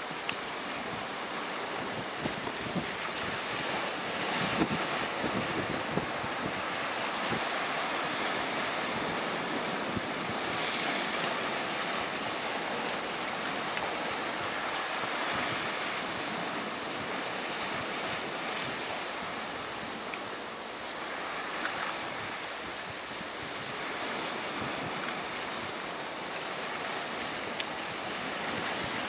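Sea surf washing against a rocky shore: a steady rushing that swells every few seconds.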